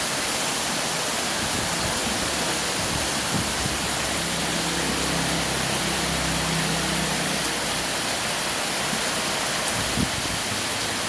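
Very heavy rain pouring down, a steady rushing hiss, with a faint low hum for a few seconds in the middle.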